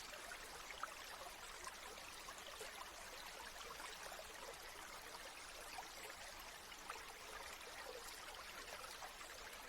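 A small stream trickling softly: a steady hiss of running water flecked with small splashes and drips.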